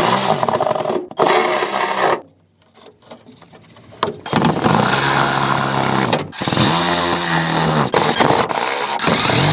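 Power tool cutting speaker holes in a car's rear deck, running in several long bursts with a quieter pause about two seconds in. Its pitch dips and rises as it cuts.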